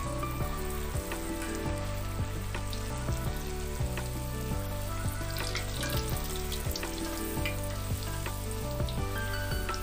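Puri deep-frying in hot oil in a wok, sizzling steadily with scattered sharp crackles, over soft background music.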